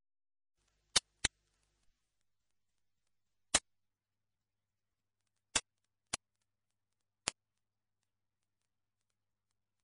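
Six sharp, isolated clicks at uneven intervals against near silence. The first two come a quarter second apart about a second in.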